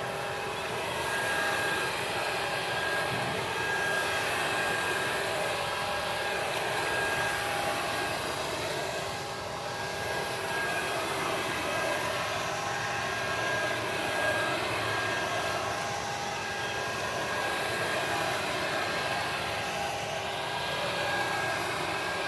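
Electric blower sprayer running steadily: a fan whine with several steady tones over a rush of air, pushing pesticide spray.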